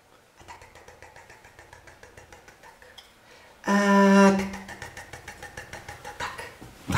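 Faint, fast, even ticking of a small spoon against a plate as grated chocolate is sprinkled into a mug. About four seconds in, a man's voice holds a short, loud sung note.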